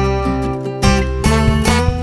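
Background instrumental music of plucked strings, note after note.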